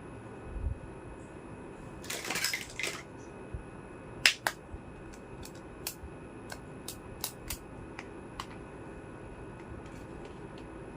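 Small hard plastic toy kitchen pieces being handled: a brief rustle about two seconds in, then a string of sharp, light clicks and taps, the loudest about four seconds in.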